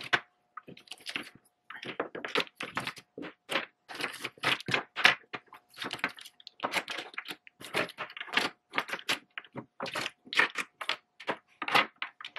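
Plastic and metal lipstick tubes and lip gloss bottles clicking and knocking on a wooden tabletop as they are set down and shuffled one after another, in quick irregular taps.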